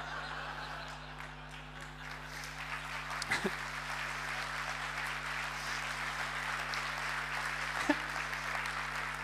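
Audience applauding steadily, growing a little louder after the first couple of seconds.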